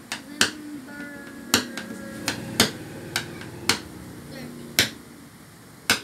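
Sharp taps at irregular spacing, about one a second, over a soft murmur of a voice.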